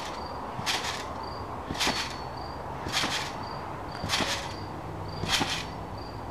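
Backyard trampoline being bounced on: the mat and springs give a short, noisy rebound sound at each landing, five times at a steady rhythm of about one a second.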